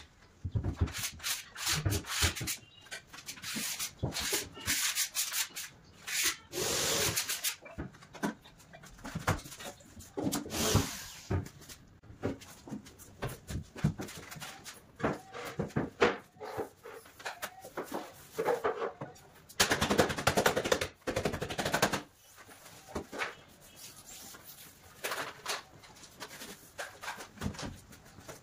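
Irregular rubbing and scraping strokes on wooden panel board, like hand sanding or filing, in uneven bursts with short pauses; the strokes are loudest about two-thirds of the way through.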